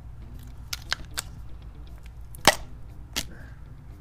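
Sharp clicks and taps from a plastic oil bottle and a plastic funnel being handled: a few light clicks about a second in, a loud snap about two and a half seconds in and one more clack shortly after. A steady low hum runs underneath.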